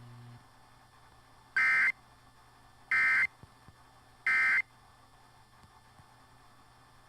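Emergency Alert System end-of-message code: three short, identical bursts of two-tone digital data signal (AFSK), about 1.3 s apart, marking the end of the alert. It comes through an FM radio with faint hiss between the bursts.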